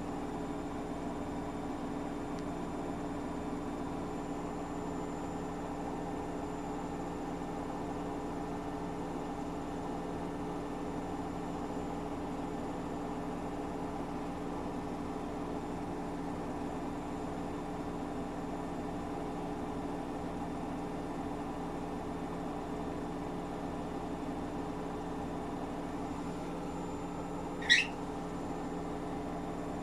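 Household washing appliance running with a steady mechanical hum. A brief sharp high-pitched chirp sounds once near the end.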